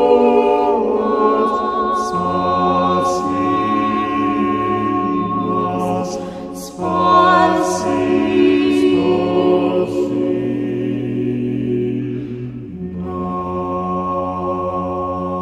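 An a cappella choir singing Orthodox church chant in Church Slavonic, a slow hymn to the Theotokos. The voices hold sustained chords over a low bass note, with the harmony changing every few seconds and a short breath between phrases about two-thirds of a second before the seventh second.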